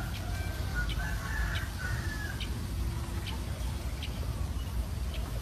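A rooster crowing and chickens clucking, faint against a steady low rumble of wind on the microphone.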